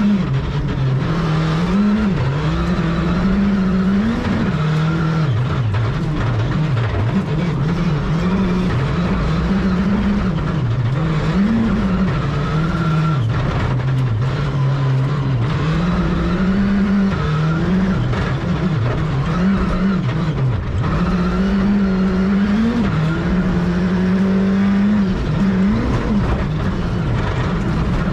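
Rally car engine heard from inside the car at stage speed. The revs keep climbing and dropping every second or two with gear changes and lifts, over a steady rush of road and tyre noise.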